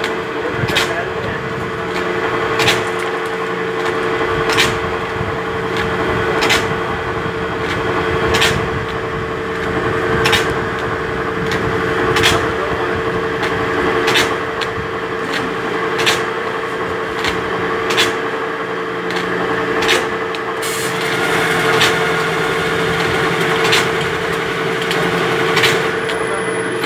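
Powder bag-filling machine running: a steady motor hum with a sharp click about every two seconds.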